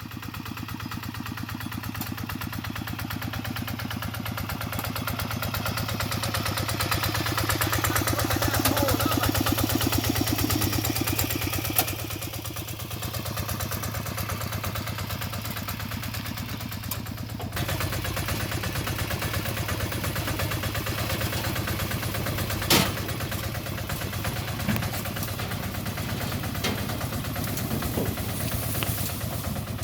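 A small engine running steadily, a little louder up to about ten seconds in and then easing off. A few sharp knocks sound over it, the clearest about 12 and 23 seconds in.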